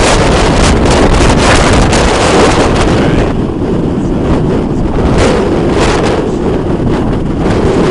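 Strong gusty wind buffeting the microphone, loud and rushing. It eases a little about three seconds in, with brief gusts surging back.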